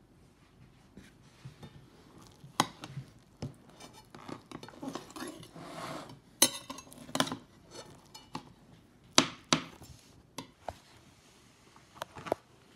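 A metal knife and cake server clinking and scraping against a glass plate while cutting through a baked spaghetti pie and lifting out a slice. Sharp clinks come at irregular intervals, with a longer scrape about halfway through.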